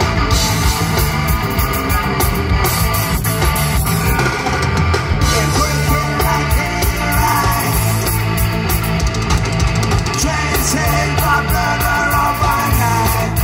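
Punk rock band playing live, loud and dense without a break.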